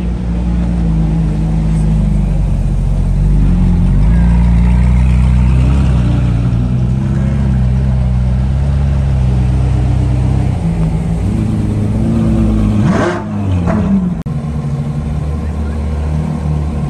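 Ferrari V8 and V12 engines idling as a 458 Italia and then an F12berlinetta roll slowly past. A quick rev comes about thirteen seconds in.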